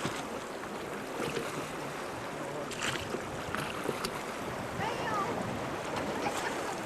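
Steady rush of river water around an inflatable raft, with wind on the microphone and a few short sharp knocks about halfway through.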